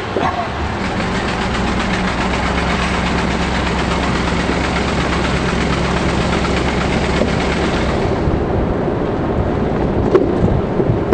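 Car engine running and tyre noise heard from inside the cabin while driving, a steady low engine tone under a broad road hiss. The hiss drops away about eight seconds in, and a few small clicks follow near the end.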